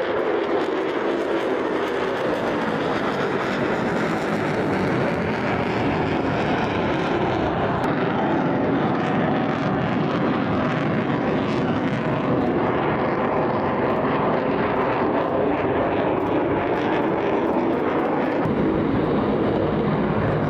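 F-35B's single F135 afterburning turbofan jet engine in flight at display power, a steady loud rushing jet noise. A deeper low rumble fills in near the end.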